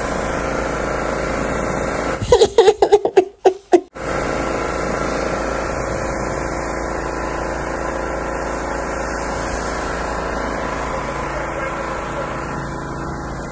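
Pressure washer motor running steadily while its jet sprays. About two seconds in, a loud, broken-up burst of voice lasting under two seconds cuts over it, and the machine's hum drops out while it lasts.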